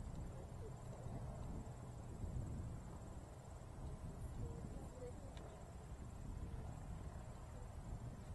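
Crickets trilling faintly and steadily, high-pitched, over a low outdoor background rumble.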